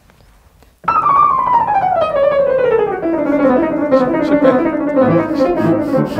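Yamaha CFX concert grand piano played very fast, attempted at 1.5 times tempo. A rapid run of notes starts about a second in and descends steadily in pitch over several seconds, with low bass notes joining near the end.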